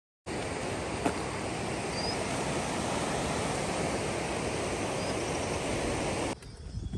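Steady, even rushing noise of outdoor ambience that cuts in just after the start and cuts off abruptly about a second before the end, with a single click about a second in.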